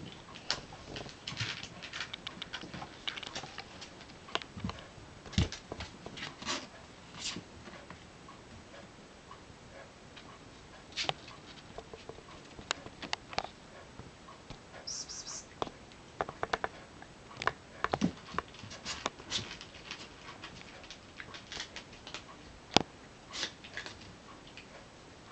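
Kittens moving about at play: irregular light clicks, taps and scratchy rustles, with a brief high squeak about fifteen seconds in.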